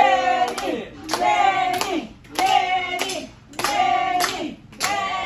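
A group of people chanting a short phrase over and over in a steady rhythm, with hand claps on the beat. The phrase comes back about once a second.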